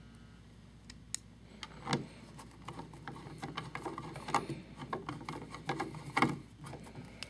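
Screwdriver turning a screw into a light-switch cover plate: a single click about a second in, then a run of irregular small clicks and scrapes as the screw is driven, the loudest near the end.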